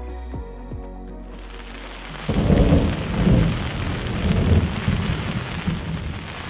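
Snow and rain pelting a tent's fly, heard from inside the tent, as a steady hiss with loud, uneven low rumbling. Background music plays briefly at the start.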